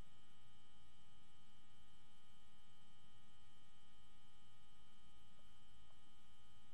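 Steady electrical hum with several fixed high-pitched tones over a constant hiss, unchanging throughout.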